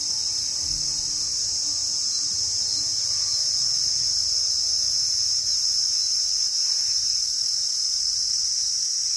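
A chorus of insects shrilling in one steady, high-pitched, unbroken drone.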